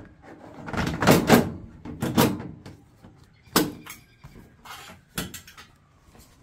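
A plastic Nissan 240SX tail light housing being handled and pressed against the car's rear bodywork: scraping and rustling of plastic on metal, then two sharp knocks, about three and a half and five seconds in.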